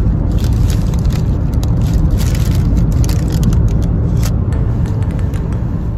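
Steady low road rumble inside a moving car's cabin, with white bakery paper bags crinkling now and then as they are handled.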